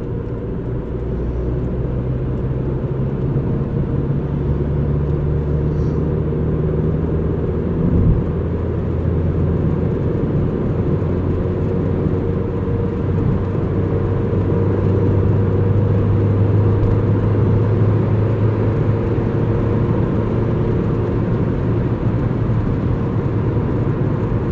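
Motor vehicle engine running steadily. About eight seconds in there is a short knock and the engine note drops, then slowly rises.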